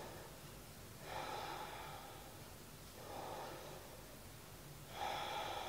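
A woman's quiet, slow breaths close to the microphone: three soft breaths about two seconds apart while she holds a yoga side stretch.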